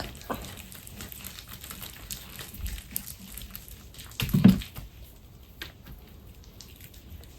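Hands kneading and stretching freshly mixed slime: faint scattered clicks and small handling noises, with one louder, short low sound about four and a half seconds in.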